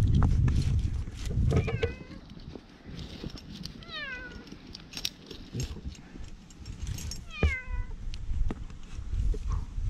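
Black cat meowing three times, each a short call that falls in pitch. Low rumbling on the microphone is loudest in the first couple of seconds, with scattered light clicks.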